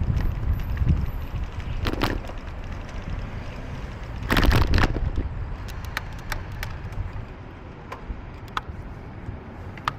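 Wind rumbling on the microphone with street noise while riding through the city. Two brief rushes of hiss come about two and four and a half seconds in, and light scattered clicks and rattles follow in the second half.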